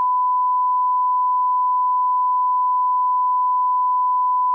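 Television colour-bar test tone: one steady, unbroken beep at a single pitch.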